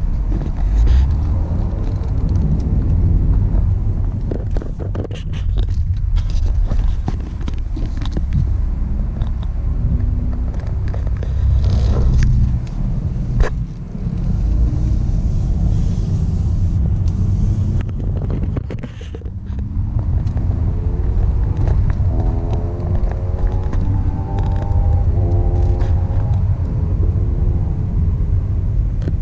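Volvo V60 T6 with a 2.0-litre four-cylinder driving slowly, heard from inside the cabin: a steady low rumble of engine and road. A couple of sharp knocks come a little before the middle, and a tone rising in steps sits over the rumble in the last several seconds.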